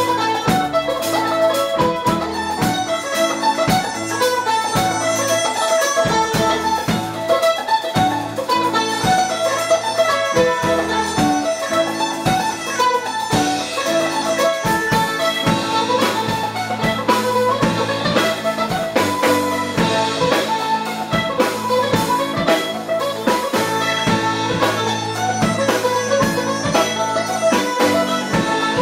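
Live band music led by an F-style mandolin playing quick picked notes. A drum kit keeps a steady beat under sustained low notes.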